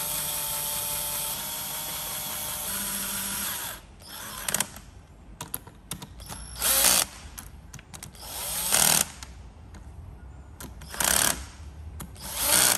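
Cordless drill-driver spinning bolts down into an aluminium cylinder head's camshaft cover: one steady run of nearly four seconds, then a string of short bursts about two seconds apart as each bolt is snugged down.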